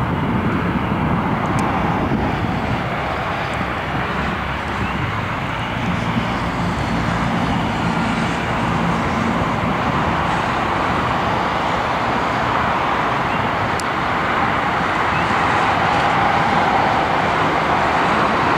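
Airbus A321 airliner's jet engines running at low taxi thrust as it taxis past, a steady rushing noise that grows slightly louder near the end.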